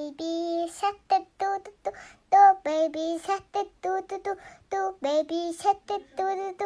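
A high-pitched, childlike voice singing a tune in short, clipped notes, as a music track.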